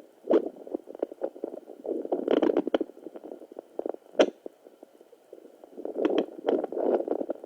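Fetal Doppler monitor's speaker putting out irregular whooshing, crackling bursts with sharp clicks, the sounds of the probe picking up movement inside the pregnant abdomen. Near the end comes a short run of quick, evenly spaced pulses.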